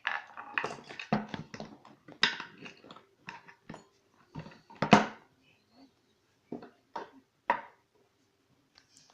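Small metal clicks, taps and short scrapes of a pin-tumbler lock being taken apart by hand after picking, irregular, with the sharpest click a little under five seconds in.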